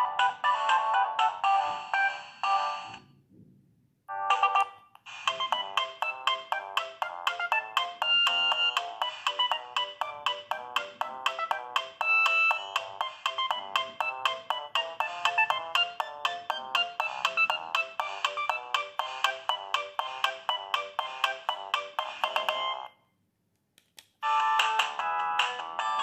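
Siemens A52 mobile phone playing its built-in ringtone melodies through its small loudspeaker, one after another as each is previewed. One tune cuts off about 3 seconds in, a brief snippet sounds near 4 seconds, a longer quick-note melody plays until about 23 seconds, and after a second of silence the next tune starts.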